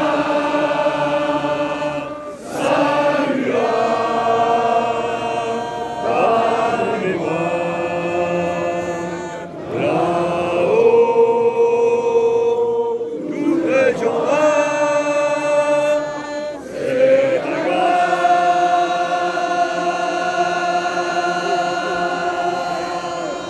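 A large crowd singing a slow song together in unison, holding long notes in phrases a few seconds long, with brief breaks between them.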